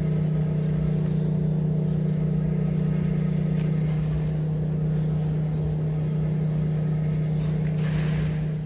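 Steady machine hum at one constant low pitch, with a brief hissing rush near the end.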